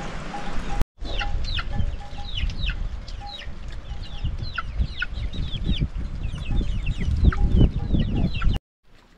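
Chickens: many rapid, short, falling high-pitched cheeps, typical of chicks, mixed with clucking, over low rumbling bumps. The sound cuts in just under a second in and cuts off near the end.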